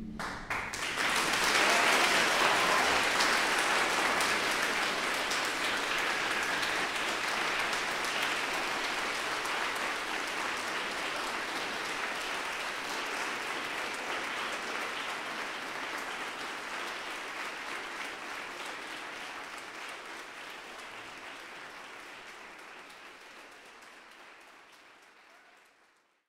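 Audience applauding. The clapping swells within the first two seconds, then slowly dies away and fades out just before the end.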